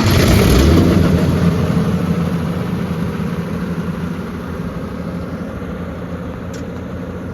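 Generac 30 kW diesel generator's engine running just after a cold start. It is loudest in the first second, then settles into steady, smooth running.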